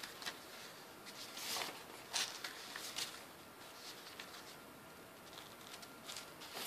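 Faint rustling and crinkling of a glue-coated paper strip being folded and wrapped around a cardboard edge by hand, in short scattered bursts that thin out after about three seconds.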